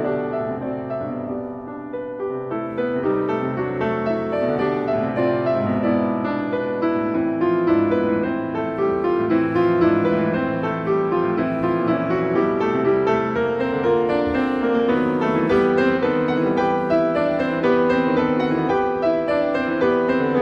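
Instrumental background music led by piano, a continuous run of notes.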